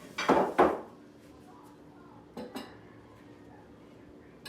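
Dishes and cutlery clattering, with two loud clinks in the first second and two lighter ones about two and a half seconds in, over a faint steady hum.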